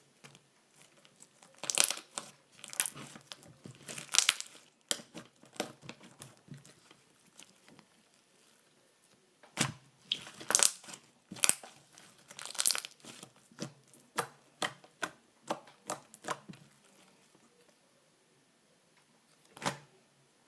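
Slime being squeezed and stretched by hand, giving runs of sharp crackling pops and snaps in two bursts, then a single pop near the end.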